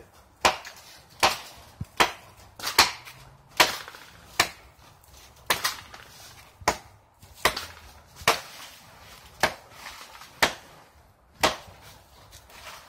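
Machete chopping into a tree, a dozen or so sharp strikes about one a second.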